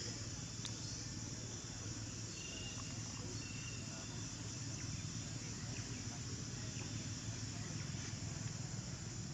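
A steady high-pitched insect chorus over a low rumble, with a few faint clicks.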